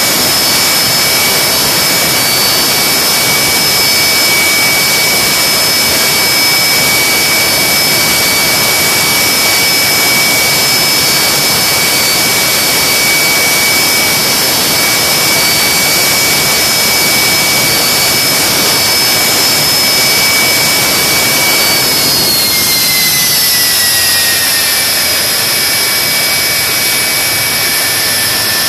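General Electric J79 axial-flow turbojet running on a test stand: a loud, steady rush with a high compressor whine. About three-quarters of the way through, the whine glides down in pitch and the noise eases a little as the engine slows.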